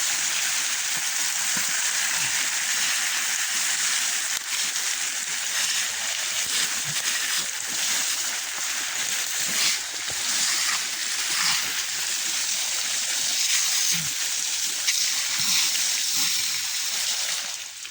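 Pressurised water hissing and spraying from a broken tee fitting in an irrigation pipe, a steady rush and splatter that stops abruptly near the end.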